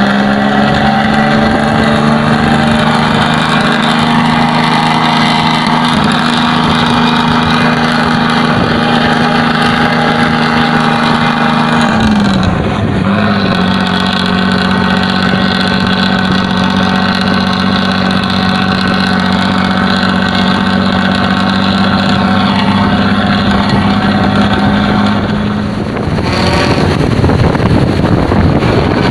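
Intercity bus diesel engine with a "ngorok" (snoring) exhaust, running with a steady droning note. About twelve seconds in the note dips briefly and comes back. Near the end the drone stops and a loud rushing noise follows.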